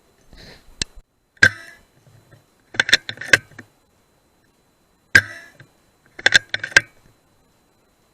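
Sharp clicks and knocks in four short clusters, several in quick succession within each cluster.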